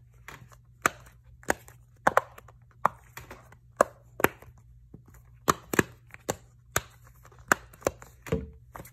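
Silicone butterfly-shaped Simple Dimple popper fidget toy, its bubbles pressed in one after another with a thumb, each giving a sharp click. There are about fifteen clicks, irregularly spaced.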